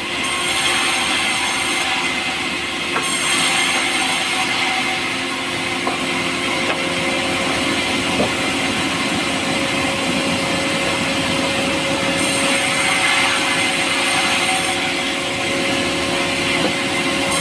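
Power saw cutting pulai (Alstonia) timber, a light, soft wood. The machine runs steadily, with a hissing cutting noise that comes and goes over it.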